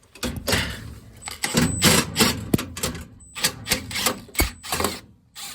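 Irregular clicking and clattering of a nut driver backing out a small sheet-metal screw and of metal parts being handled while a gas furnace's hot surface igniter is removed.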